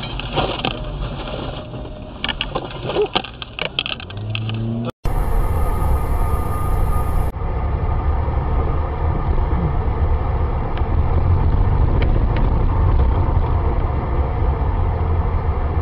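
Steady low rumble of a car's engine and tyres heard from inside the cabin through a dashcam microphone, with scattered clicks and knocks in the first few seconds. About five seconds in the sound cuts out for an instant and comes back as a louder, steadier rumble.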